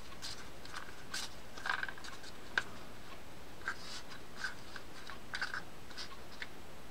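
Faint clicks and light scrapes of a South Bend Condor spinning reel's parts being handled and turned by hand, with the sharpest click about two and a half seconds in.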